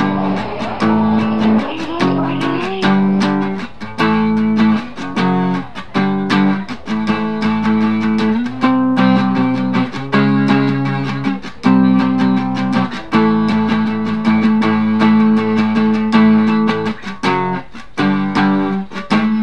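Guitar music: a strummed and plucked guitar playing chords in a steady rhythm.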